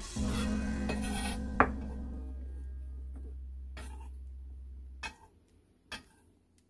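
Background music fading out over the first few seconds, with a kitchen knife knocking on a wooden chopping board as bell pepper is cut: one sharp knock about a second and a half in, then single knocks about a second apart near the end.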